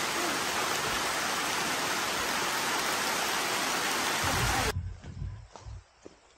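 Steady, loud hiss of rain falling in the forest, which cuts off abruptly near the end. Then it goes quiet but for a few soft footsteps on a dirt trail.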